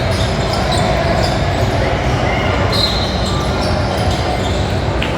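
Basketball game in a gym: a ball bouncing on the hardwood court amid steady court noise, with short high squeaks now and then.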